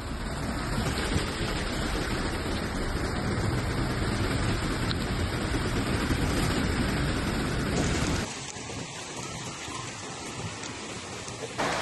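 Heavy rain and floodwater rushing down a street: a loud, even hiss with a deep rumble under it. About eight seconds in it drops abruptly to a quieter, thinner hiss of rain.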